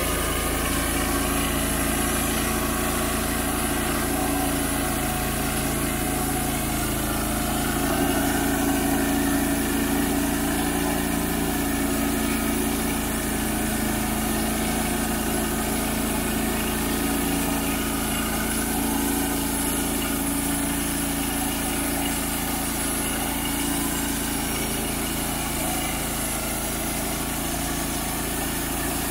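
Wood-Mizer LT35HD portable band sawmill running steadily under load as its band blade saws through a red oak log, with sawdust blowing out of the discharge chute.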